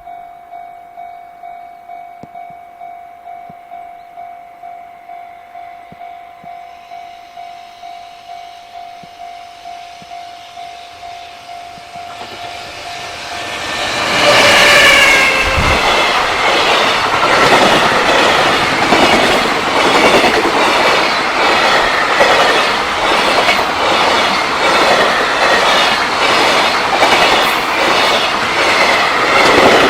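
Japanese level-crossing warning bell ringing steadily about twice a second. About halfway through, a freight train reaches the crossing with a short horn blast and becomes much louder than the bell, its wagons' wheels clattering rhythmically over the rail joints.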